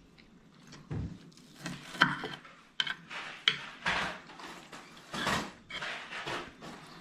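Metal fork clinking and scraping on a plate as food is scooped up, a run of sharp clicks and short scrapes, the sharpest about two seconds in.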